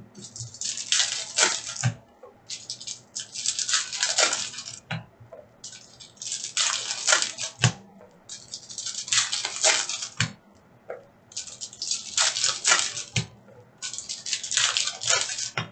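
Foil wrappers of Upper Deck hockey card packs crinkling and tearing as packs are torn open and the cards handled, in about six bursts of a second or two each.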